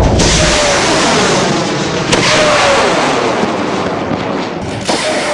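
Three Kosdon M-3200 ammonium perchlorate composite rocket motors firing together at liftoff of a high-power rocket: a loud, steady rush of exhaust noise that slowly fades as the rocket climbs. Two sharp clicks break through it, about two seconds in and near the end.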